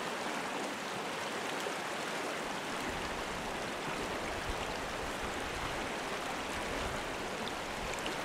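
Shallow, stony stream running fast over gravel riffles: a steady, even rush of water.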